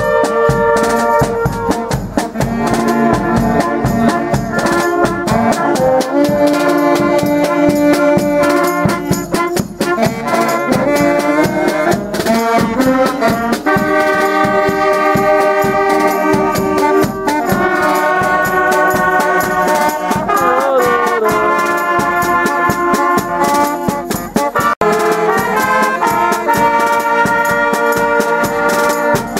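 Brass band playing a tune, with trumpets and trombones holding chords that change every second or so over a regular beat.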